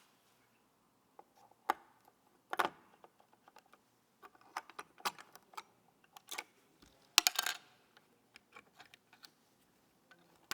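Irregular clicks, taps and light clatter of small hard parts being handled during a PC build. A louder clatter comes about seven seconds in, with smaller ticks before and after.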